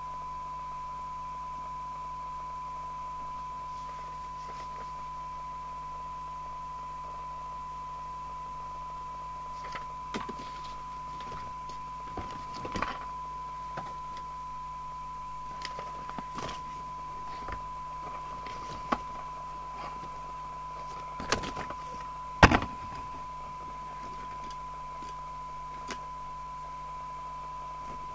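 A steady high test tone, the 1 kHz tone used for receiver sensitivity measurement, runs throughout over a faint mains hum. Scattered small clicks and knocks of plastic radio case parts and screws being handled come and go, the loudest about 21 and 22 seconds in.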